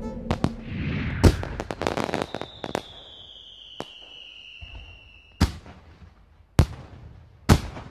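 Fireworks: a rapid flurry of crackling pops and bangs, then a long whistle slowly falling in pitch for about three seconds that ends in a bang. Two more single sharp bangs come about a second apart near the end.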